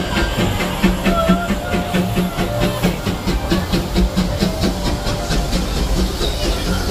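The Disneyland Railroad's E.P. Ripley, a 4-4-0 steam locomotive, rolling past with its coaches: steady rumble and steam hiss, with a fast, even clicking of several beats a second.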